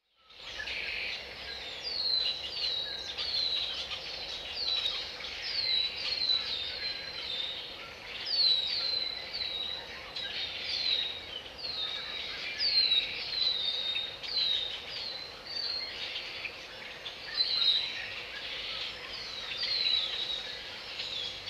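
Wild birds calling: short chirps that slide downward, repeated over and over, over a denser background of other bird calls.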